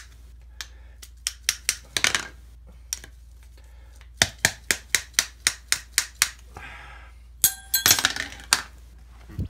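A metal spoon rapped over and over against a hard surface, in runs of sharp knocks about four a second, then dropped near the end, clattering with a brief metallic ring.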